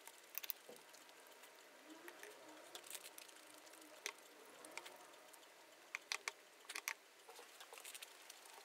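Faint eating sounds: scattered light clicks and taps of chopsticks against a plate, a few coming in quick pairs near the end.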